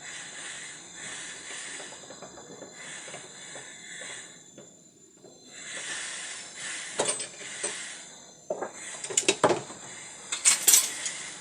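Steady hiss of a gas torch flame heating a washing-machine transmission to free it from the drum. In the second half come several sharp metallic knocks and clicks.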